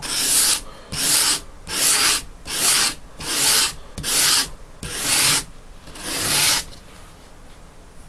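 A knife blade drawn in eight even strokes across 220-grit sandpaper backed by a foam pad, a rasping hiss about every 0.8 s that stops near the end. The foam lets the paper give under the blade, rounding the primary edge into a convex shape.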